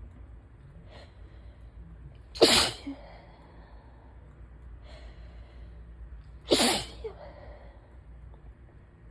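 A person sneezing twice, about four seconds apart, each sneeze sharp and loud with a short breath drawn a second or so before it. The sneezes come from an allergy attack, which the sneezer puts down to pollen.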